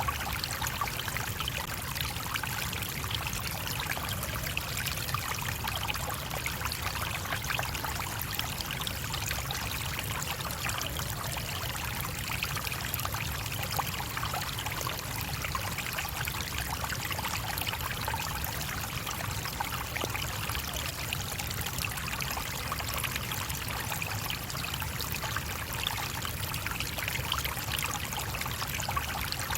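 A small stream burbling and trickling over stones, steady and unchanging.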